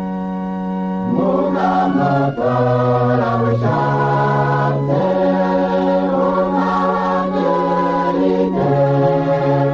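An organ holds a chord, and about a second in a choir comes in singing a slow chant over the sustained chords.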